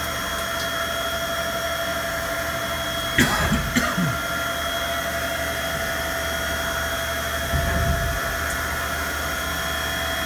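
CNC milling machine spindle running with a steady whine and hum while the end mill moves through a roughing pass, cutting air rather than metal. A few brief knocks and clatters sound about three seconds in and again near the eighth second.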